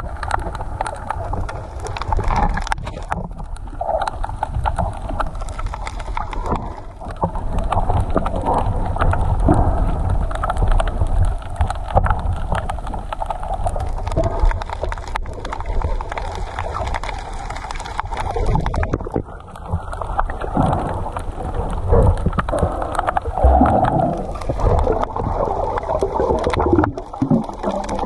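Muffled, uneven rushing and gurgling of seawater moving around a submerged camera.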